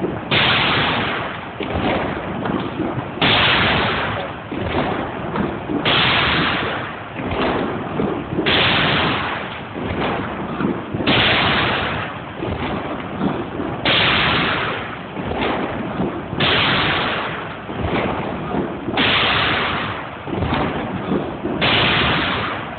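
Black-powder salute cannons firing in turn, nine booms at an even pace of about one every two and a half seconds. Each shot rolls away over a couple of seconds before the next one.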